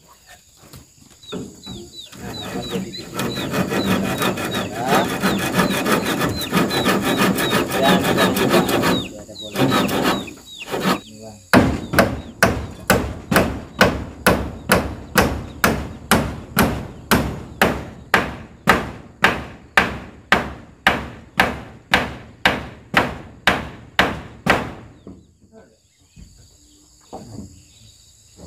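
Hand saw cutting a wooden board for several seconds with rapid strokes. Then a hammer drives nails into wooden wall boards with steady blows about two a second for around thirteen seconds, stopping near the end.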